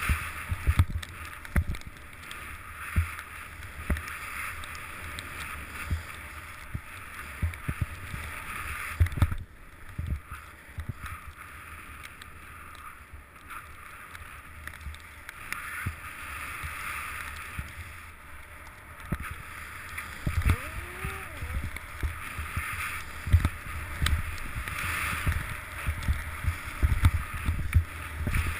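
Muffled rush of powder snow and air past an action camera descending through deep snow, with frequent dull thumps as bumps and turns jolt the camera. A brief rising-and-falling tone sounds about two-thirds of the way through.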